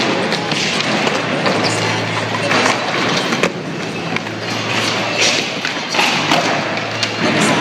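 Skateboards rolling on a concrete floor, with a series of sharp clacks from boards popping and landing, under a steady low hum. Near the end a board slides along a low metal flat rail.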